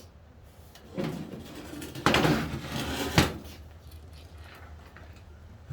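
Scraping and clunking of a car seat being shifted and handled to look underneath it, ending in a sharp knock about three seconds in.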